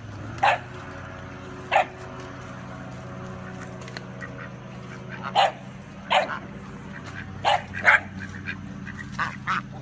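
Dog barking in short, sharp barks, about eight of them, some in quick pairs, over a steady low hum.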